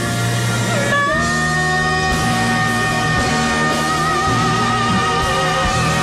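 Live duet performance with band accompaniment: a note slides down about a second in, then a long note is held steadily over the accompaniment.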